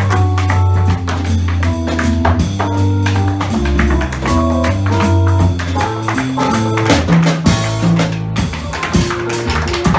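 Tap shoes striking a hard floor in fast, dense improvised rhythms over a live electric keyboard playing a bass line and chords.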